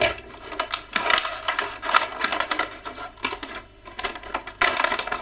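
Stiff plastic toy packaging and small plastic accessories clicking and crackling as they are handled and pulled out, with a louder flurry of clicks near the end.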